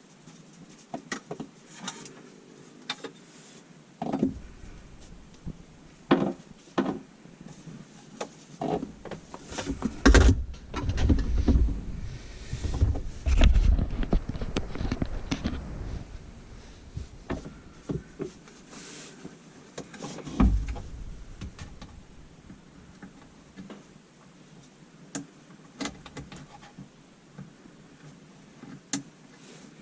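Knocks, clicks and rattles of tools and metal parts being handled, with a denser stretch of bumping and scraping in the middle.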